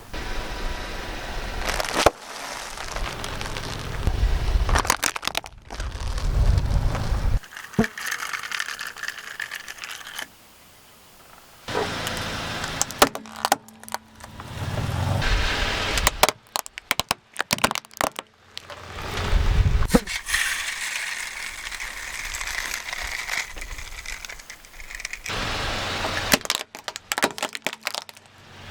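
A car's tyres rolling over and crushing crunchy objects, giving repeated cracks, crackles and sharp snaps over a low rumble, in several takes that start and stop abruptly.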